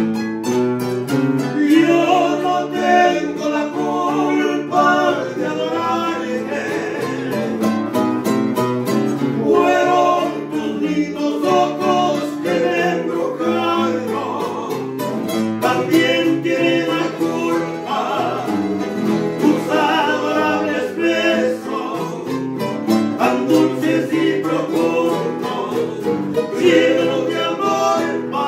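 An Ecuadorian pasillo sung over plucked acoustic guitar: a voice carries the melody above a steady, busy guitar accompaniment.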